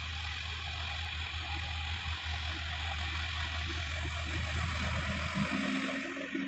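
Sonalika DI-50 RX tractor's diesel engine running steadily with a low drone while it pulls a rotary tiller through dry ground. About five and a half seconds in, the engine note shifts higher.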